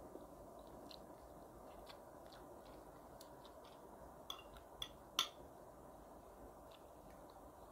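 Metal fork clinking on a ceramic plate three times in quick succession, the last the sharpest, about four to five seconds in, while spaghetti is twirled. Faint small clicks of chewing over quiet room noise.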